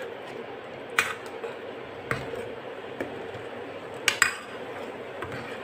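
Steel ladle clinking against the side of a metal pan while stirring a thick curry, about once a second, with two quick clinks close together near the end.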